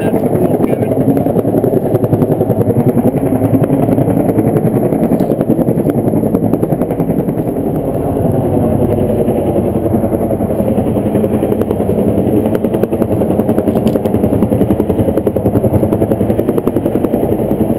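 Helicopter rotor chop: a loud, steady, rapid beating that holds at an even level.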